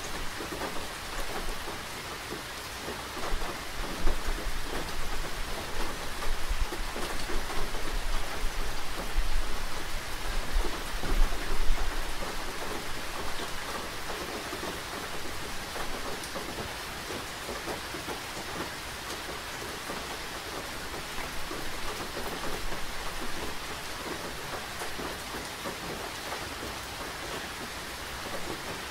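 Steady rain falling and pattering on surfaces. A low rumble swells under it from about three seconds in and fades out about twelve seconds in.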